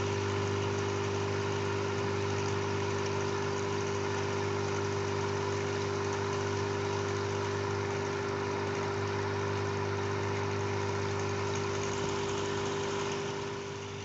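A steady machine hum: a low drone with a steady higher tone above it and a hiss over the top, unchanging. It dips briefly near the end.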